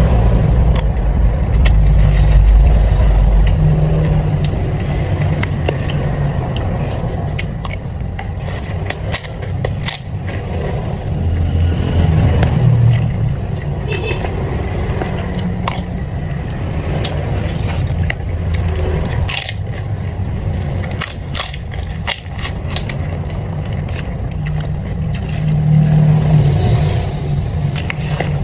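Someone eating: chewing and crunching with scattered sharp clicks, over a steady low rumble.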